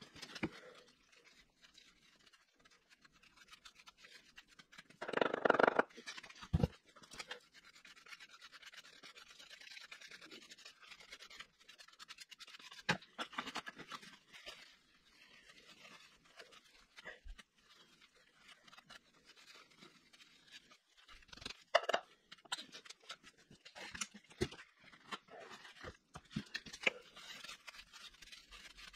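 Scattered clicks, knocks and scraping from tools and metal motorcycle parts being handled, with a rag rubbing over a removed cover. A louder scrape lasting about a second comes about five seconds in.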